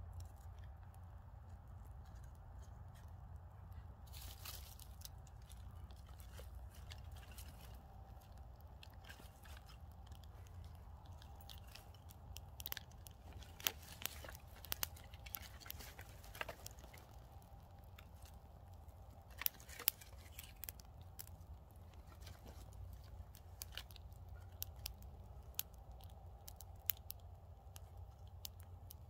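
Small kindling fire of thin twigs crackling as more twigs are laid onto it: scattered sharp pops and clicks, thickest in the middle, over a faint low steady rumble.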